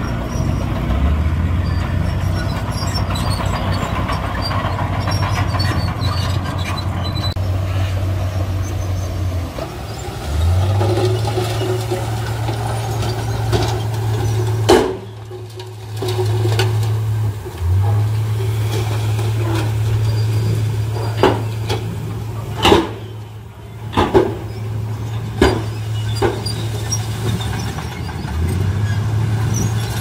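Diesel dump truck engines running with a steady low hum while the raised tipper beds unload soil, the hum breaking off and picking up again several times. Several sharp knocks stand out in the second half.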